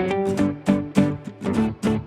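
Background music: a strummed and plucked guitar tune with a steady beat.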